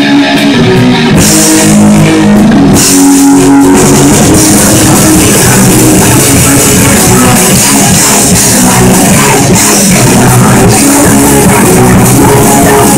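Rock band playing live and very loud: electric guitars riffing over amps, with the drum kit's cymbals crashing in about a second in, a brief break, and then the full band playing on.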